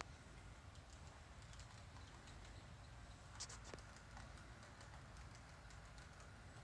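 Model freight train rolling slowly on its track: faint, scattered light clicks of the wheels over the rail joints, with one sharper click about three and a half seconds in.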